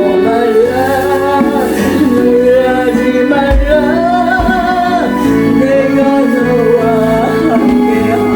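A solo voice singing a Korean gospel song over sustained instrumental accompaniment, the melody gliding and held in long notes.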